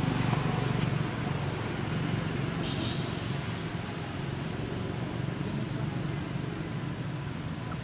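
Steady low outdoor rumble, with one short high squeak or chirp about three seconds in.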